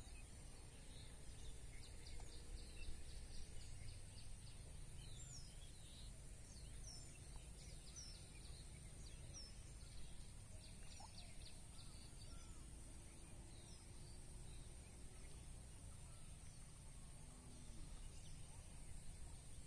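Faint outdoor ambience: a steady low rumble and a steady high hiss, with scattered faint bird chirps, mostly in the first half.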